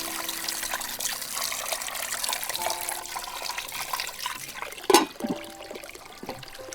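Water splashing and trickling, with one louder splash about five seconds in.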